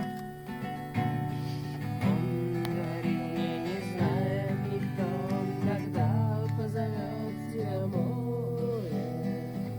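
Acoustic guitar strummed in a steady rhythm, with a wavering melody line above the chords.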